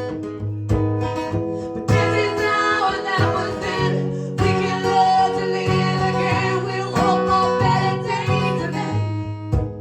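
Live music: strummed acoustic guitars playing an instrumental passage of a folk-rock song, with sharp percussive hits every second or so.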